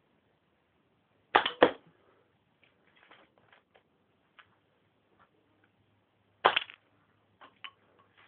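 Home-built K'nex rubber-band gun firing: a sharp double snap about a second and a half in and another single snap near the end, with small plastic clicks between.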